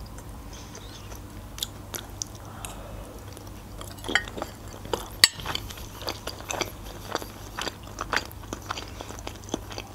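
Close-miked chewing of a boiled manti dumpling: soft mouth clicks and smacks at irregular intervals.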